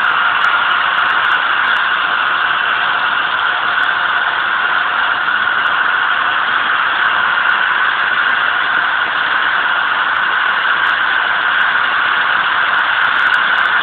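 Steam locomotive No. 186, an old GS&WR J15 class 0-6-0, standing with steam hissing steadily and loudly from it, an even, unbroken hiss.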